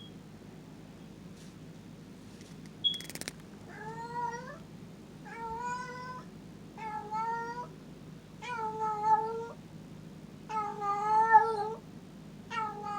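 A domestic cat meowing over and over, six drawn-out meows of about a second each, one every couple of seconds. A single sharp click comes just before the first meow.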